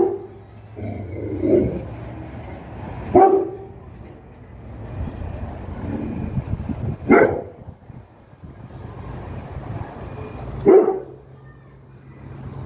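A dog barking in single sharp barks, one every few seconds, about five in all.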